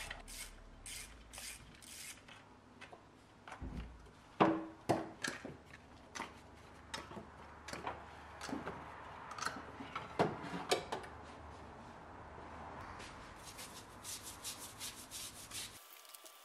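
Hand work on a BMW M20 engine while the spark plug leads and distributor cap come off: scattered light clicks and rubbing of the leads and tools, with a few sharper knocks about four to five seconds in and again about ten seconds in.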